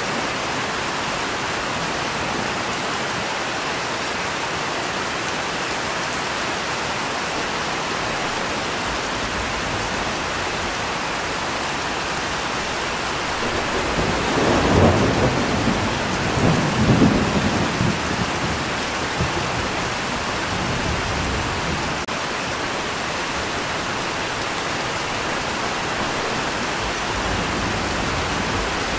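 Steady rain hissing, with a roll of thunder about halfway through that swells, peaks twice over a few seconds and fades back into the rain.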